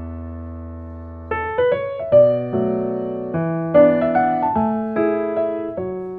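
Background music played on piano: a held chord fades for about a second, then a light melody of separate notes comes in over chords.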